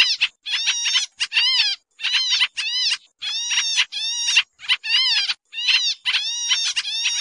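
Pied triller (kapasan kemiri) lure call, noisy: a continuous run of arched call notes, each rising then falling in pitch, given in quick clusters of two to four at about three notes a second.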